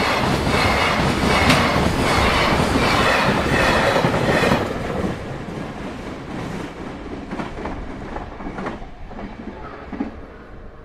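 Container freight train passing close by at speed: a steady rolling rush with wheels clicking over the rail joints. About four and a half seconds in the last wagons go by and the sound drops sharply, then fades away with a few scattered wheel clicks.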